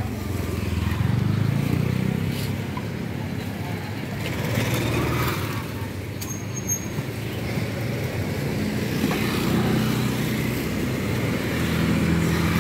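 Street traffic: motorbike engines running and passing by, their hum swelling twice, under a busy street background.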